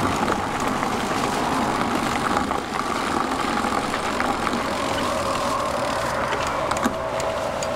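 Steady wind and road noise from riding an e-bike, with a faint steady whine coming in about five seconds in.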